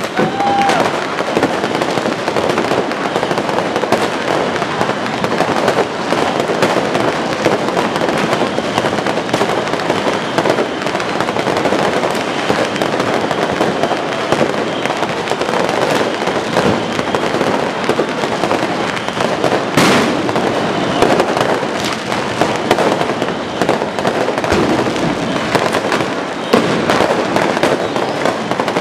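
Fireworks crackling and popping in rapid, dense volleys, with one sharper bang about twenty seconds in.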